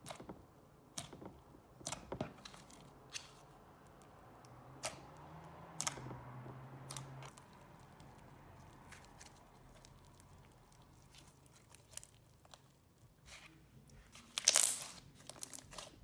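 Slime being squeezed, stretched and pressed by hand, giving irregular sticky clicks and pops, with a louder burst of clicks near the end.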